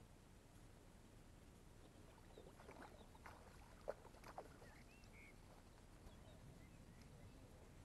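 A few short splashes of water as a landing net is worked in the shallows at the bank, bunched together near the middle with the sharpest one just before halfway. Faint bird chirps around them.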